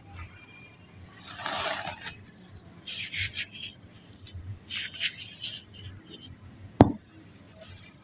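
Dry black sand shaped into balls crumbling and crunching apart in short gritty bursts, three or four times. A single sharp tap near the end is the loudest sound.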